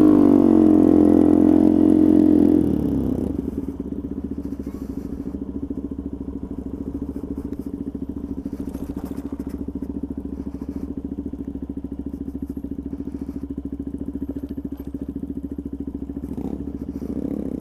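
Small motorcycle engine pulling away loudly for about three seconds, then running steadily at low speed, with a fast, even pulse.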